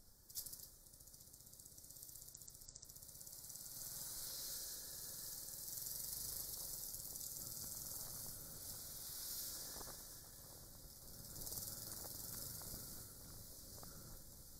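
Steady hiss of wind and riding noise from a moving motorcycle, heard through a small dashcam microphone, with a faint low rumble beneath it. It swells over the first few seconds and then holds, and a single sharp click comes about half a second in.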